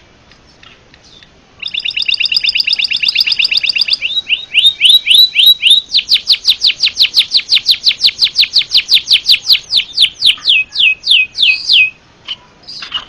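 A pipit haji songbird singing a loud, canary-like song: it starts a couple of seconds in with a fast trill, changes to a short run of falling notes, then pours out a long stream of rapid down-sweeping notes that slows toward the end and stops about a second before the close.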